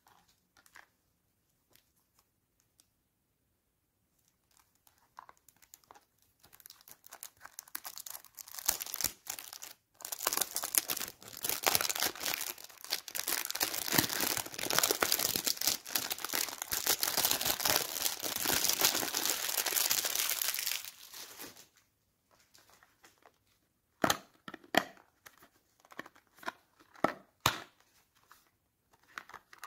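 Clear plastic wrap being torn and crinkled off a small cardboard cosmetics box: a dense crackling that starts about six seconds in and runs loud for about ten seconds before stopping. Near the end come a few sharp cardboard clicks as the box is opened.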